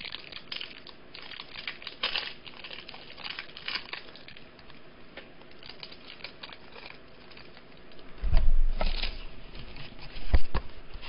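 Trading cards being handled: rustling, crinkling and sliding against each other in the hands. Near the end come a few dull thumps, the loudest about ten seconds in.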